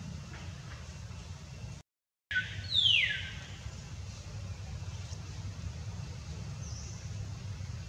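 An animal's short, high call sweeping steeply down in pitch, about three seconds in, over a steady low rumble. The rumble drops out completely for about half a second just before the call.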